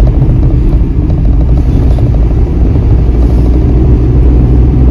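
Renault Kwid on the move, heard from inside the car: a loud, steady low rumble of engine and road noise.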